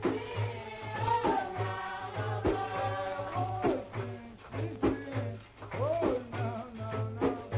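Background music: a voice singing a melody over a steady low beat.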